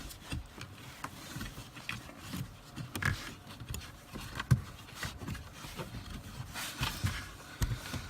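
Plastic dash trim and clips being pried and handled with a tool: scattered knocks, clicks and scrapes, with the sharpest knock about halfway through.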